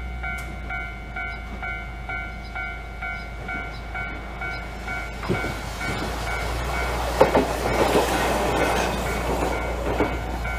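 Level-crossing warning bell ringing about twice a second, then a Hankai tramcar running through the crossing from about five seconds in, its wheels clacking over the rail joints, loudest a couple of seconds later.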